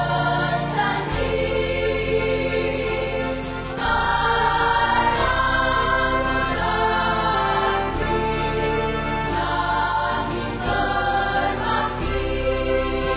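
Music with choral singing: held chords that shift every second or two, slightly louder from about four seconds in.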